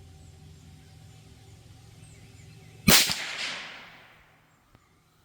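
A single shot from a Marlin 782 bolt-action .22 Magnum rifle about three seconds in, sharp and loud, its report trailing off over about a second and a half.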